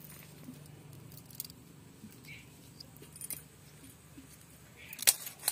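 Small clicks and light rustling of hands scraping tiny fish rubbed with ash, with wrist bangles clinking. A louder burst of clinks comes about five seconds in.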